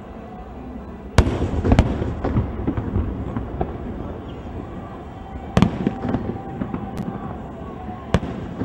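Aerial firework shells bursting: two sharp bangs about a second in with crackling after them, then three more single bangs spaced a second or so apart in the second half.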